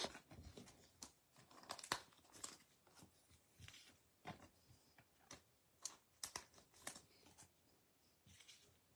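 Faint rustling and light taps of baseball trading cards being handled and set down on a table, in scattered short scrapes every half second or so.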